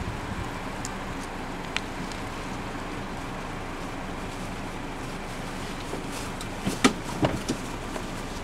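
Zebra hooves clopping on asphalt: a short run of four or five sharp knocks about seven seconds in, over a steady low rumble.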